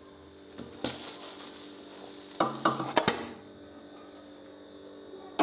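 Cookware being handled: a knock about a second in, a quick run of sharp clinks and knocks around the middle, and a louder knock at the end, over a faint steady background.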